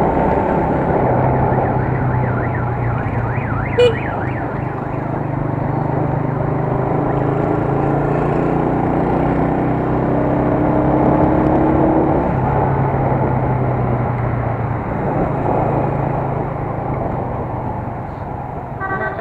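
A United US 125 motorcycle's single-cylinder 125 cc four-stroke engine running steadily while riding through city traffic, with road and wind noise. A short vehicle horn beep sounds about four seconds in.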